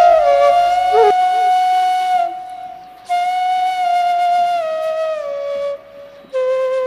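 Background music: a slow flute melody of long held notes that slide gently from one pitch to the next, pausing briefly twice.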